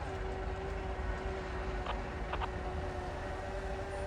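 Freight train cars rolling past with a low rumble and a steady high-pitched tone. A few sharp clicks come about two seconds in.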